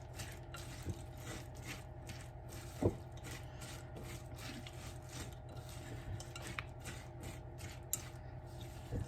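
Spoon stirring and scraping a thick sour cream and mayonnaise mixture in a bowl: soft, repeated scraping strokes, with one knock about three seconds in, over a steady low hum.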